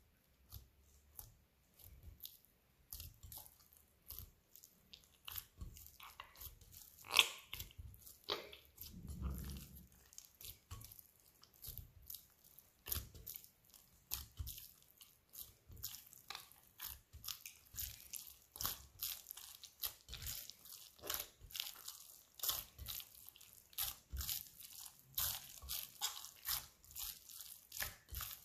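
Hands kneading soft, sticky bread dough in a glass bowl as olive oil is worked into it: a run of short, wet squelches and sticky smacks that come thicker and faster in the second half.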